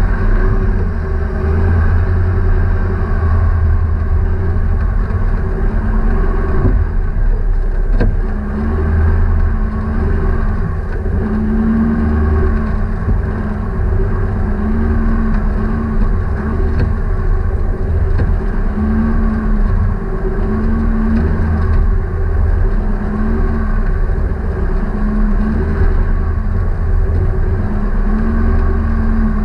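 A motor vehicle's engine running steadily, its pitch wavering slightly.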